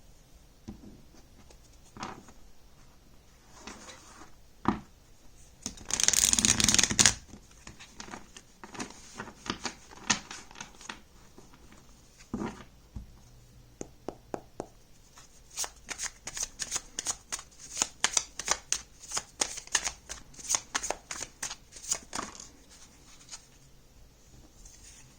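Oracle cards being shuffled and handled by hand: scattered slides and taps, a dense shuffle about six seconds in, then a long run of quick card snaps, about four a second, in the second half.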